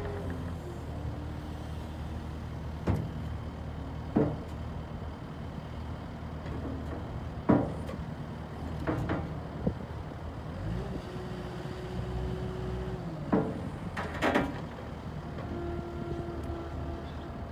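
Caterpillar 289D compact track loader running steadily on its diesel engine, with about eight sharp metal clanks from the bucket and loader arms as the bucket is worked and set down. A steady hydraulic whine rises twice, once past the middle and again near the end.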